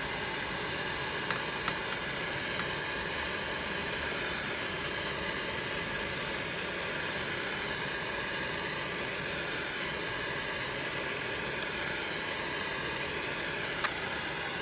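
Handheld gas torch burning with a steady hiss while heating brass, with a few faint ticks.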